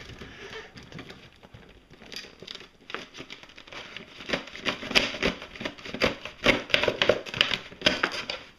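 Stiff clear plastic toy packaging crinkling and crackling as it is twisted and pulled to free the toy inside, with many sharp clicks and knocks that come thick and fast from about halfway through.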